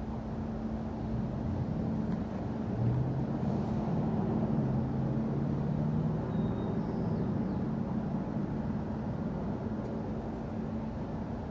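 City street traffic: a steady low rumble and hum, with a motor vehicle's engine swelling and passing from about two to eight seconds in.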